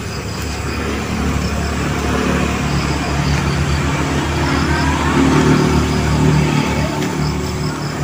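A motor vehicle's engine running, a steady low hum that grows louder over the first few seconds. Insects chirp in a repeating pulse high above it.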